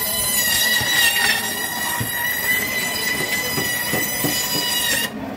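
Electric band saw cutting through a large catfish, its blade running with a steady high-pitched squeal that wavers slightly, cutting off suddenly about five seconds in.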